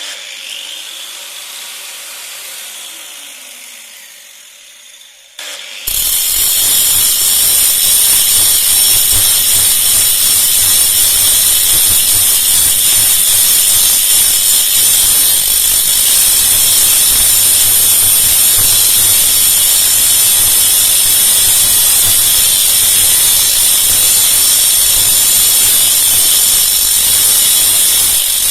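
Quieter, fading noise for the first five seconds, then a power tool working metal starts and runs loud and steady with a strong hiss.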